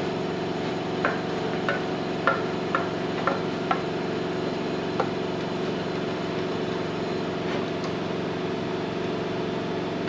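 A steady machine hum runs throughout, with light clinks and taps of paint containers and a mixing cup being handled, about eight of them between about one and five seconds in.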